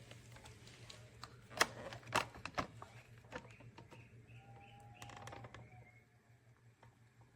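Light plastic clicks and knocks from handling the parts of a cordless wet-dry floor vacuum, three sharper ones about two seconds in, over a faint steady hum.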